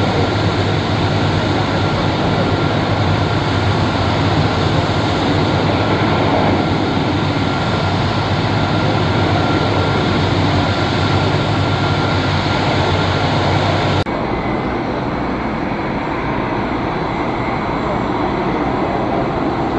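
Boeing 747-400 Freighter's jet engines running at taxi power: a steady jet rumble with a thin high whine. About fourteen seconds in the sound drops abruptly and loses much of its low rumble, then carries on steadily.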